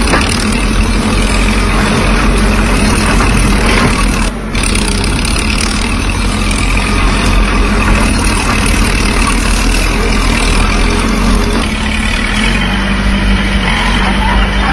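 Diesel engines of heavy earthmoving machinery, a crawler excavator and bulldozer, running steadily with a continuous low hum, with a brief dip about four seconds in.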